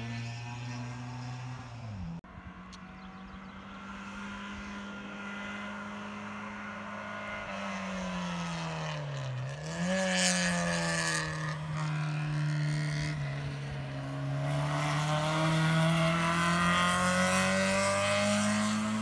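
Race car engine under hard acceleration on a hill climb course. Its note falls away briefly about two seconds in, then climbs steadily in pitch. Around halfway it dips sharply and climbs again, and it rises once more before falling near the end.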